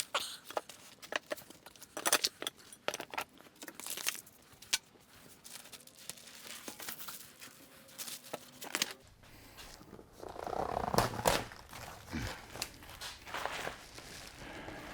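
Cardboard packaging being torn open and handled, crinkling, with scattered sharp clicks and knocks from the steel table parts, and a louder rustling stretch about ten seconds in.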